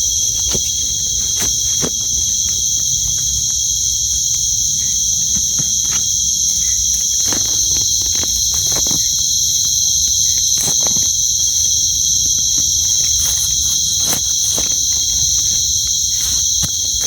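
Loud, steady chorus of night insects, a continuous high shrill drone, with scattered close clicks and rustles throughout.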